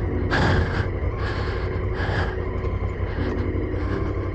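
Honda Africa Twin CRF1000L's parallel-twin engine running at low speed on a dirt trail, under a heavy steady rumble, with short hissing bursts about once a second.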